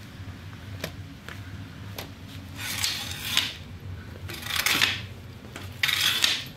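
Military surplus wire-mesh snowshoes scraping and clattering on a concrete floor as they are walked in: a few light clicks, then three scuffing steps about a second and a half apart.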